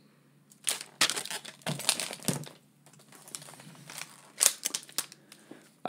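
Hard plastic graded comic book cases being handled and swapped: irregular clicks, knocks and plastic rustling as one slab is set down and the next picked up.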